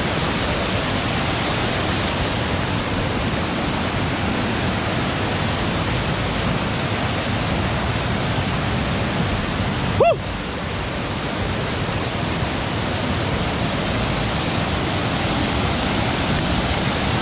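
Waterfall: water rushing steadily down smooth rock slabs, an even, unbroken noise, with one short blip about ten seconds in.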